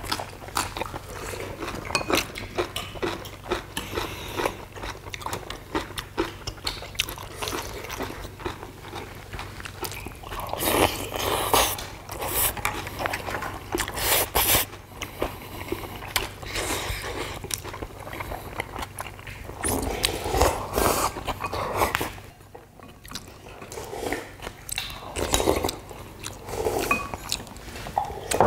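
Several people chewing and eating at a table, with frequent small clicks of chopsticks and spoons against ceramic bowls.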